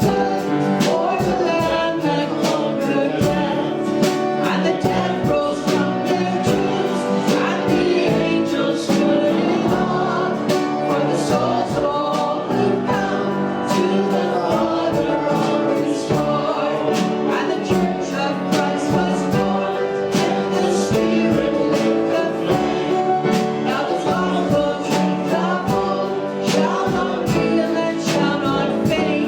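Worship music during a church service: a band playing with voices singing together over a steady beat.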